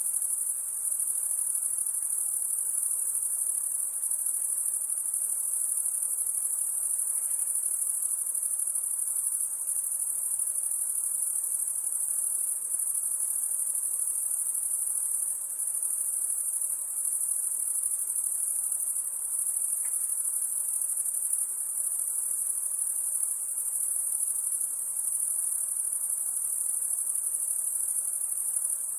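Cricket chorus at night: a steady, continuous high-pitched insect trill.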